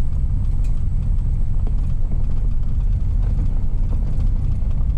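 A vehicle driving along a road, heard from inside the cabin: a steady low rumble of engine and tyres.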